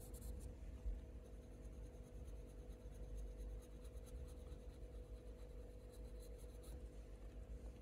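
Faint, continuous scratching of a Faber-Castell Polychromos colour pencil shading across hot-press watercolour paper, with a faint steady hum underneath.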